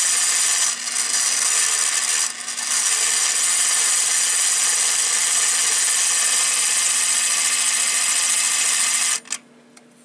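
Spring-driven clockwork mechanism of a 1960s Standard Electric (Edwards) BC-1250 coded pull station running, quite noisy, as it turns the code wheel that pulses the alarm code. Its sound dips briefly about one and two and a half seconds in, then cuts off suddenly with a click about nine seconds in as the mechanism stops after its four code cycles.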